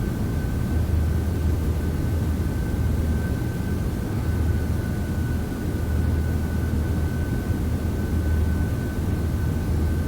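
A steady low machine drone with a thin, steady high whine above it, unchanging and without separate events.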